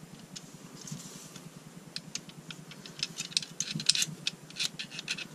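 Quick irregular metallic clicks and light scraping of a steel flat-blade screwdriver worked inside an AR-15 lower receiver against the safety selector and trigger parts. The clicks are sparse at first and become busier and louder from about two seconds in.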